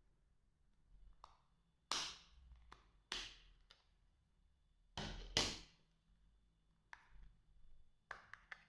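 Irregular soft clicks and taps from handling an Alcatel OT-808 mobile phone and pressing its keys. The loudest come about two and five seconds in, with a quick run of clicks near the end.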